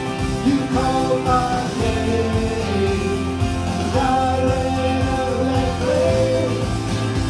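Worship song: a band playing under singing, with the voice holding long notes.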